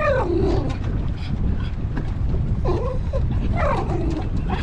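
A dog whining in about three falling whines, near the start, partway through and near the end, over a steady low rumble.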